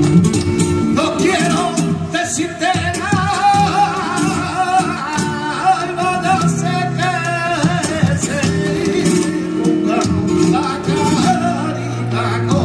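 Live flamenco: a man sings long, wavering, ornamented lines over flamenco guitar, with hand-clapping (palmas) and the dancer's heel strikes coming through as sharp cracks.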